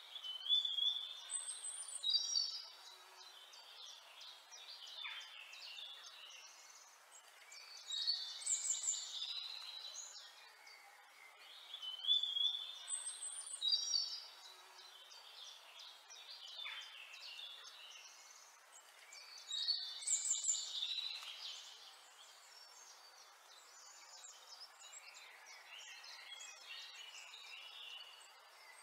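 Birds singing: short phrases of high chirps and whistled trills come every four to six seconds over a faint steady hiss.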